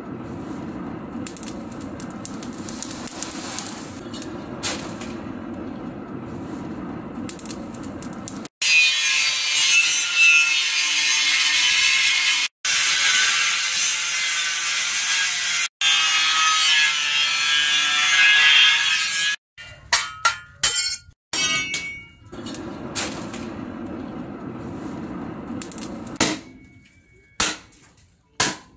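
Handheld angle grinder cutting into a steel tractor plough disc: a loud, high-pitched shriek in three stretches, from about eight seconds in until about nineteen seconds. Before it there is a steady low hum. After it come a string of sharp metal knocks and clanks.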